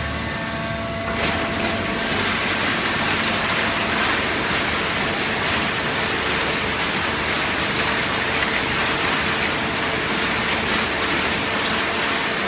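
Hydraulic cardboard baler running: a loud, steady mechanical noise with a constant hum, which gets louder about a second in.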